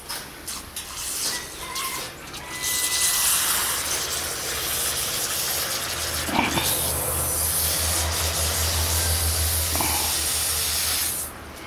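Water spraying from a hose for a parrot's bath, a steady hiss starting a couple of seconds in and cutting off sharply near the end.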